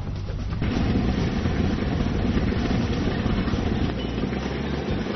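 Homemade self-propelled chili-pepper harvester running steadily, its engine and picking head working through the pepper plants. The machine sound comes in about half a second in.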